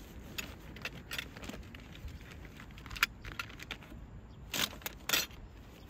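Small clicks and light metallic clinks of gear being handled, with a sharper click about three seconds in and two short rustling scrapes near the end.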